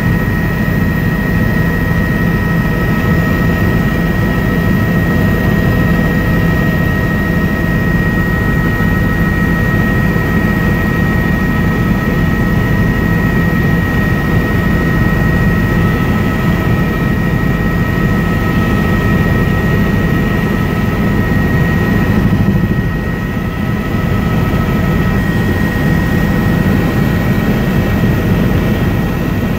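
Tour helicopter in steady flight, heard from inside the cabin: a loud, even engine and rotor drone with a steady high whine over it, dipping briefly about three-quarters of the way through.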